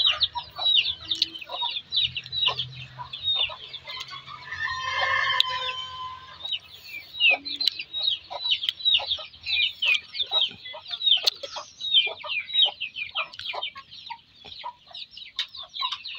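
Chickens: chicks peeping constantly in rapid, high, short chirps, several a second, with a rooster crowing once about four seconds in.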